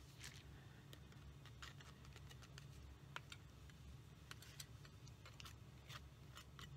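Faint, scattered light clicks and scrapes of a palette knife working wet acrylic paint off a canvas edge, over a low steady room hum.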